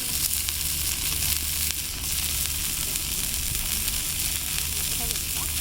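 Food sizzling steadily in a frying pan over a campfire, a continuous even hiss.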